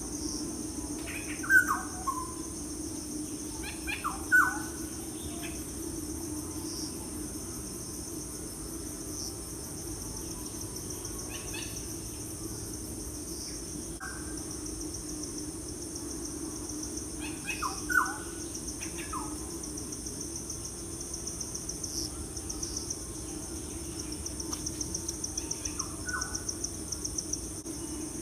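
Wild birds giving short chirping calls now and then, a few in quick clusters, over a steady high-pitched chorus of insects such as crickets.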